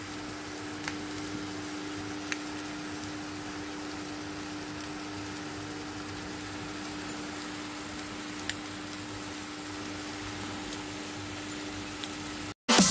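Scrambled eggs, shrimp and leek sizzling gently in a frying pan on a gas stove, over a steady hum, with a few faint ticks. It cuts off just before the end.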